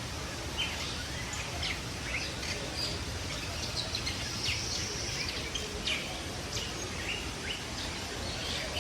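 Several caged birds chirping, short high calls coming irregularly several times a second over steady background noise.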